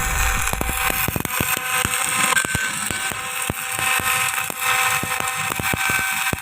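Electric arc welding: a steady crackle of the arc, full of sharp irregular pops, with a faint steady tone underneath.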